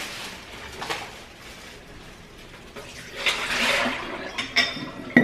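Water splashing into a kitchen sink as a glass mason jar of old flower water is emptied, followed near the end by several sharp clinks of glass with a short ring.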